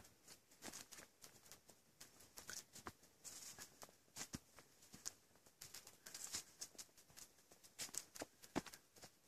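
Quiet footsteps on a grassy dirt trail, irregular soft steps with brief swishes of grass and leaves brushing.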